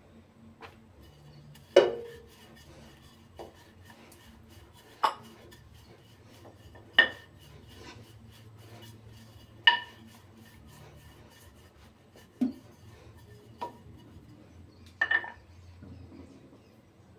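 Hard kitchen items, the rolling pin among them, knocking and clinking on a granite countertop while dough is rolled out: about eight separate sharp knocks a second or more apart, each ringing briefly, the loudest about two seconds in.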